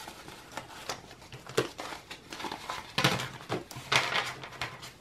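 A stack of paper banknotes rustling as it is handled and tucked into a plastic binder envelope. There are a few light taps, and two louder rustles about three and four seconds in.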